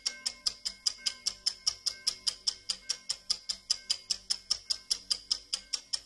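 Clock ticking rapidly, about five sharp, even ticks a second, with faint ringing tones lingering beneath.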